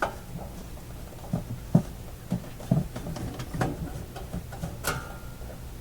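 Screwdriver working screws out of a metal plate on an old radio chassis: small scattered clicks and scrapes, with about five sharper clicks, over a low steady hum.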